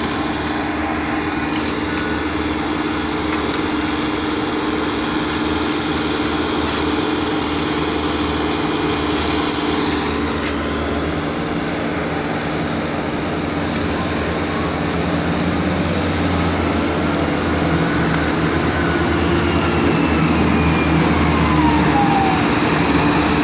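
Engine of a small LeeBoy asphalt paver running steadily, joined by a wheel loader's engine that grows louder over the last several seconds as the loader drives up with a bucket of asphalt.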